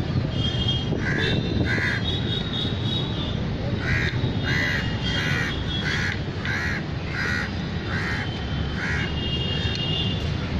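A bird calling over and over: about ten short, harsh calls, two near the start, then a steady run at roughly one call every two-thirds of a second, over a steady low background rumble.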